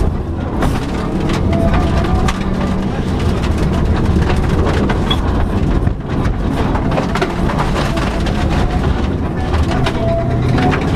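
Subaru Impreza rally car's flat-four engine running hard at speed on a stage, with a steady low rumble. Many short sharp knocks and clatters from the road surface hit the car throughout.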